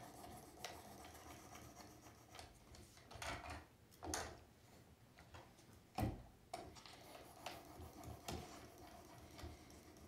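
Faint, scattered clicks and light scrapes from a Work Sharp Precision Adjust sharpener: a ceramic hone worked along a small Swiss Army knife blade and the plastic clamp being handled, with one sharper click about six seconds in.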